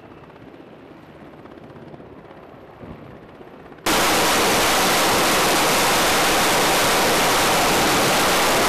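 A hovering helicopter's steady rotor and engine noise, then, about four seconds in, a sudden jump to a much louder, flat and unbroken roar: an F/A-18's jet engines run up at full power on the carrier's catapult.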